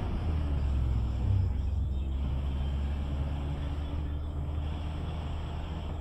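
Steady low rumble of a ZR minibus's engine and road noise, heard from inside the van as it drives along.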